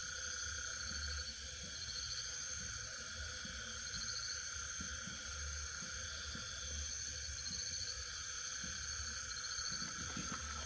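Night insect chorus: crickets and other insects trilling steadily, several at once at different pitches, some in fast pulsing trills. A faint low rumble runs underneath.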